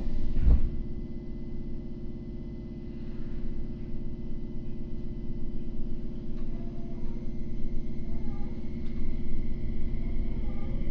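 Running noise inside a Tokyo Metro N05 series electric train: a steady low rumble of wheels on rail, with a heavy thump about half a second in. Near the end a faint rising whine begins as the Hitachi IGBT inverter and traction motors take power.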